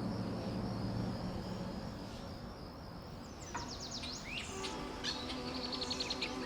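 Insects trilling steadily, fading out about halfway through. Birds then chirp in quick runs, and background music comes in over them.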